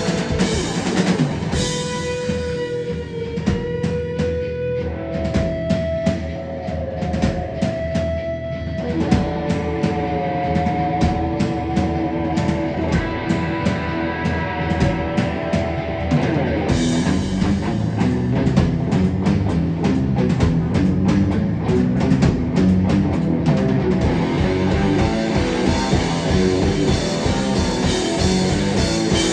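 A rock band playing, with a drum kit and guitar.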